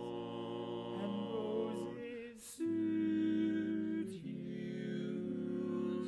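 Male barbershop quartet singing a cappella in four-part close harmony, holding long sustained chords. The chord changes about two and a half seconds in, after a brief sung "s", to a louder held chord, and moves again near four seconds.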